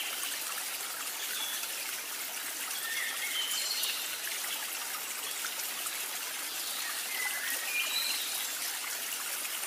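Steady trickling water, like a small stream, with short high chirps scattered over it; it cuts off suddenly at the end.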